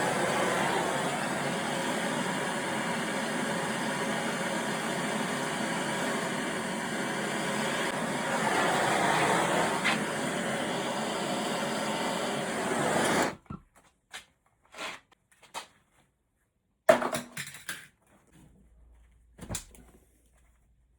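A steady rushing hiss that stops abruptly about 13 seconds in, followed by a few scattered clicks and knocks.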